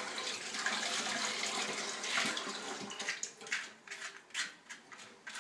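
Metal spoon scraping avocado flesh out of the skin: wet rasping scrapes, continuous at first, then separate short strokes about twice a second from about three seconds in.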